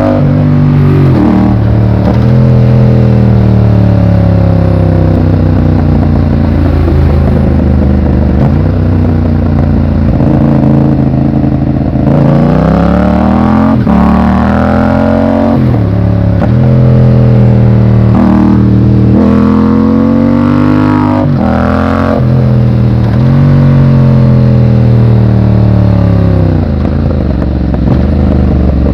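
Yamaha MT-07's 689 cc parallel-twin engine running loud on the road. Its pitch climbs again and again as it accelerates, then drops sharply at the gear changes or sinks as it slows.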